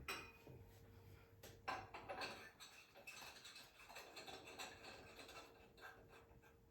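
Faint clicks, taps and light scraping of a light bulb being screwed into the new fixture's socket, mostly in the first half, over a faint steady hum.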